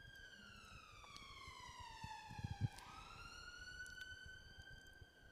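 Faint emergency-vehicle siren in a slow wail, its pitch falling for nearly three seconds and then rising again. A couple of low thuds about two and a half seconds in.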